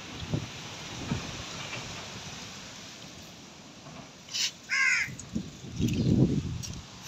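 One short animal call with a falling pitch, about two thirds of the way in, after a couple of faint clicks. Then comes a low rumble and bumps from the camera being swung about.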